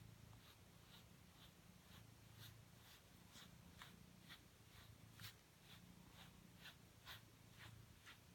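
Faint, quick scratchy strokes of a deshedding brush through a British Shorthair cat's dense coat, about two a second, over a low purr that swells and fades with the cat's breathing.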